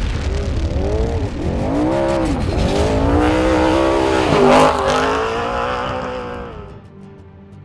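Off-road race vehicle's engine revving hard at speed, its pitch rising and falling several times, loudest about four and a half seconds in, then fading out near the end as music comes in.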